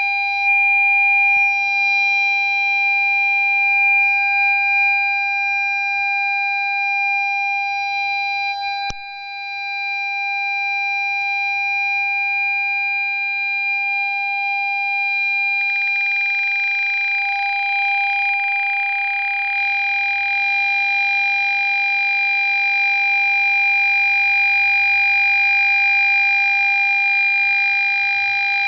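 Ford Fiesta parking sensor buzzer sounding one continuous tone rather than separate beeps, the signal that an obstacle is very close. There is a click with a brief drop in level about nine seconds in, and a steady hiss joins a little past halfway.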